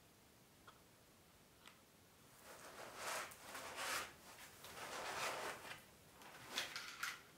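Packaging and parts being handled at close range: two faint clicks, then about five seconds of rustling and scraping swells, with a couple of sharper knocks near the end.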